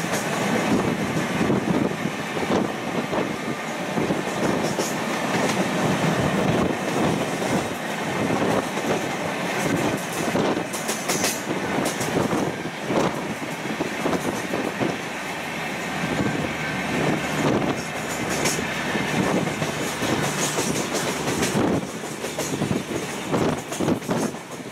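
Train running at speed, heard from on board: a steady rumble of wheels on rails with frequent irregular clicks and clatter.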